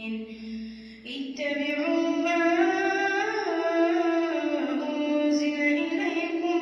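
A boy's voice reciting the Quran in melodic tajweed chant, drawing out long held notes that rise and fall slowly in pitch. There is a short breath-break about a second in.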